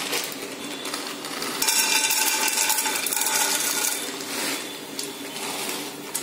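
Dry popcorn kernels poured into a steel kadai with hot oil, rattling against the metal pan. The pour starts about a second and a half in, lasts about two seconds, then tails off.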